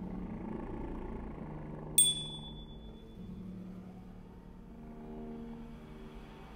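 Chamber ensemble holding quiet, sustained low notes that shift pitch a couple of times, and a small metal bell struck once about two seconds in, ringing high and fading over about a second.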